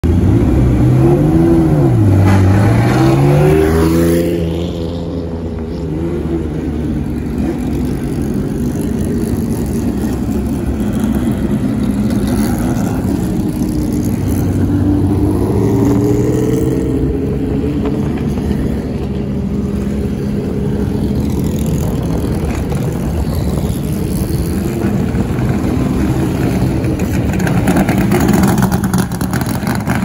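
Classic race cars' exhaust as the cars pull away one after another at low speed, engines revving up and down in the first few seconds, then running steadily with more throttle rises as each car passes.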